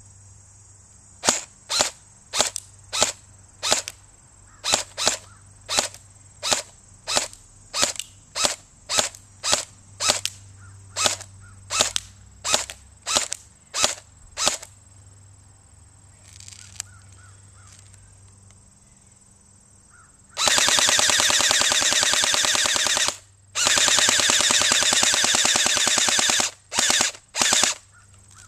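Colt M16 airsoft rifle firing: about two dozen single semi-auto shots, each a sharp snap, roughly two a second. After a pause it fires on full auto, two long bursts of about three seconds each and then two short bursts near the end.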